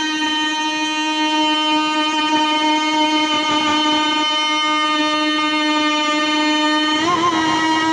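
A man singing one long held note at a steady pitch for about seven seconds, then breaking into a wavering, ornamented run near the end: a naat reciter drawing out the close of a sung line.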